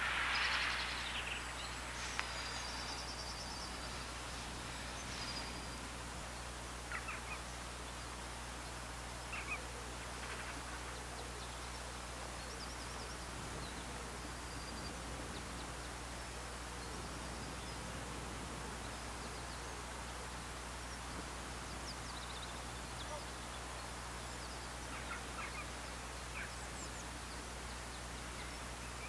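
Scattered bird calls and short chirps, a few seconds apart, over a steady low background rumble. A hiss fades out in the first second.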